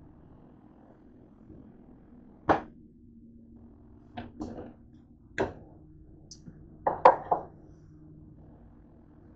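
Kitchen items knocked and set down on a hard countertop: a string of sharp clacks, single ones about two and a half and five seconds in and a loud cluster of three about seven seconds in, over a faint steady hum.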